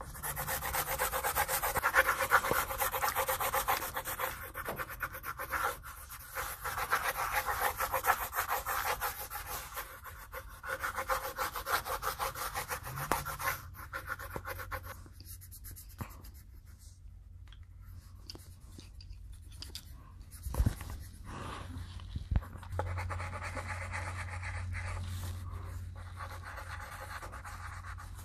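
Coloured pencils shading back and forth on paper over clipboards: a fast, steady scratching, densest in the first half and lighter later on, with two soft knocks near the end.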